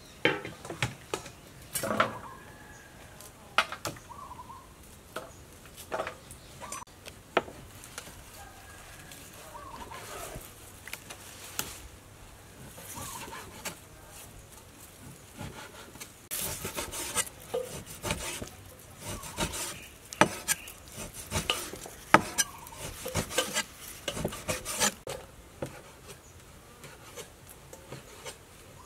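Kitchen knives cutting food: a blade tapping and chopping on a wooden board, and crisp water spinach stalks being cut through by hand. The sound is a run of quick, irregular clicks and taps, busiest in the second half.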